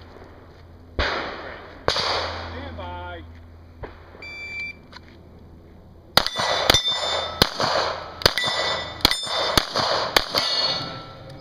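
A shot-timer start beep about halfway through, then a fast string of about ten pistol shots over some five seconds. Each hit on the steel plate targets rings like a bell.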